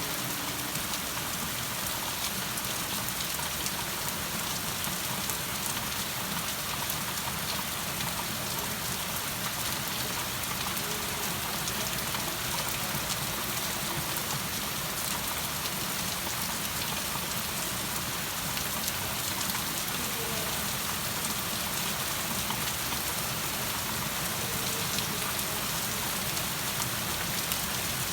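Steady rain falling and pattering on surfaces, an even hiss with many fine drop ticks, unchanging throughout.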